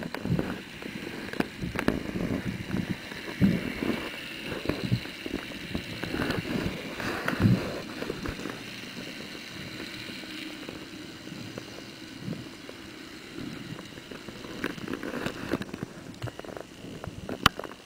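Underwater water noise heard through a camera housing: irregular low thumps and gurgling of water and bubbles, with a few sharp clicks near the end.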